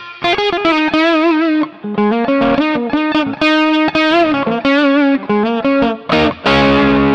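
Electric guitar played through a Mooer GE200 amp-modeller on its 'Rock and Roll' preset (6L6 tube, Blues 112 cab simulation), with a lightly crunchy tone. Single-note licks, with vibrato on the held notes, end in a strummed chord near the end.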